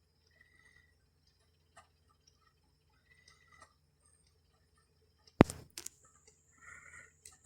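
Light scattered ticks and clicks of plastic zip ties being worked around a bicycle's hydraulic brake hose. A sharp loud click comes about five and a half seconds in, with a second click just after.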